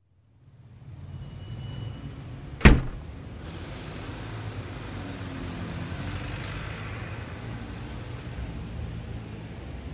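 Steady low rumble of distant traffic, fading in at the start, with one sharp bang a little under three seconds in as the front door is pushed open.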